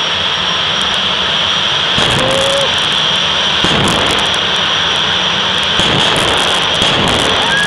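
Jet dragster's turbine engine running at the start line: a steady jet roar with a high whine. It grows louder and rougher about two seconds in and again around four seconds.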